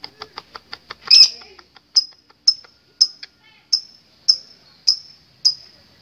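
Lovebird calling: a quick run of short, dry, clicking chirps, about eight a second, then one loud harsh squawk just after a second in, then sharp high chirps repeated evenly about twice a second.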